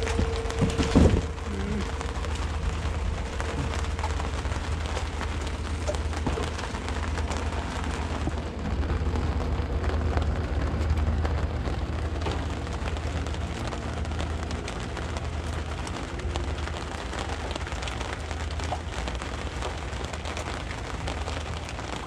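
Steady hiss of rain over a low rumble, with a couple of sharp knocks about a second in.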